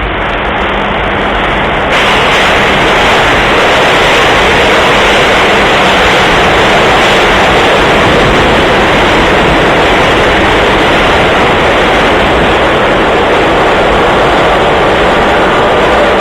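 Subway train running into the station: a loud, steady rushing roar that steps up about two seconds in and holds.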